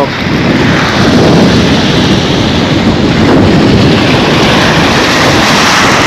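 Strong wind buffeting the microphone, over waves breaking and washing up a pebble beach.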